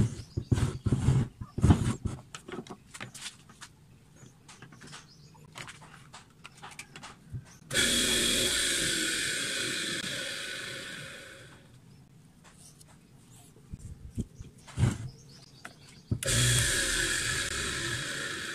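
Knocks and clatter of a bench grinder being handled on a wooden table, then its electric motor, running with bare shafts and no wheels, switched on with a sudden start and whining down slowly over a few seconds. The same start-and-fade comes again near the end.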